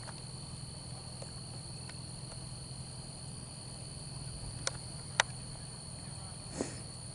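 Steady chorus of insects such as crickets, a continuous high-pitched trill, over a low hum. A few sharp clicks sound about four and a half and five seconds in.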